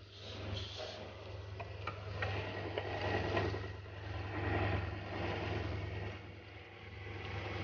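Foundry sand mixer running with a steady hum while K-Cast moulding sand pours from its chute into a wooden flask, making a rushing hiss that swells and eases.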